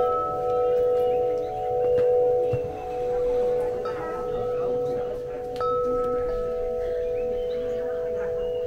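Wind chimes ringing, struck a few times: near the start, about four seconds in and again a little later. Each strike sets off clear tones that hang on and overlap into a steady shimmering chord.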